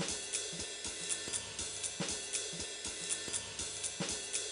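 Intro background music with a steady drum-kit beat, cymbals and hi-hat over kick and snare.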